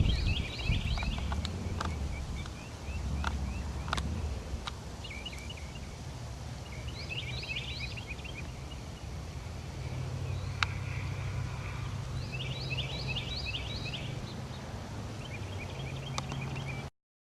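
Outdoor ambience with a songbird singing short, quick phrases of repeated chirps every few seconds, over a low steady hum and a few sharp clicks.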